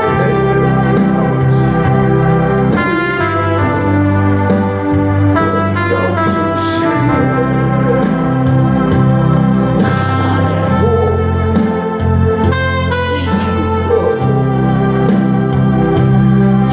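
Instrumental music: sustained organ-like keyboard chords over a bass line that moves every second or two.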